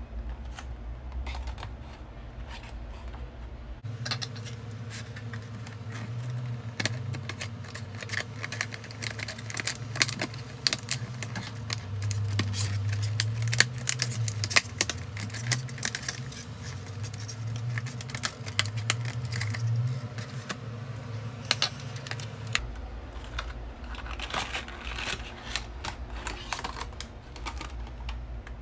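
Stiff clear plastic blister packaging crackling and clicking as it is handled and cut open, in many sharp irregular clicks.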